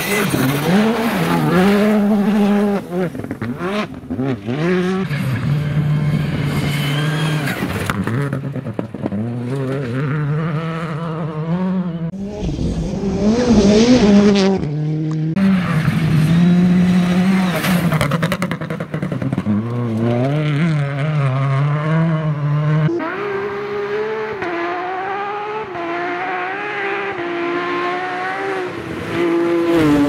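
R5-class rally cars, among them a Škoda Fabia and a Citroën C3, driven hard on gravel, one pass after another. Their turbocharged four-cylinder engines rev up and drop back with each gear change and lift, the pitch climbing and falling repeatedly and switching abruptly from one car to the next.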